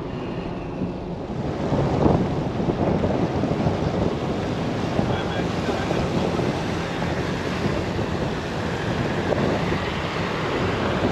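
Heavy rain pouring down: a steady, loud rushing that swells about two seconds in and stays up.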